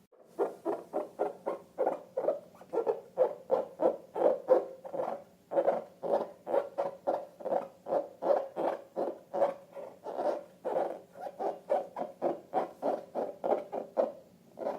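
Rapid, rhythmic squishy squeaks from a slime-filled rubber balloon being squeezed over and over, about three or four a second.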